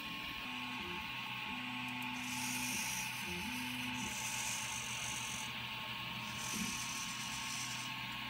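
Servo motors in a 3D-printed InMoov robot's Drupp neck whirring in three short bursts of about a second each as they drive the head through a programmed movement sequence.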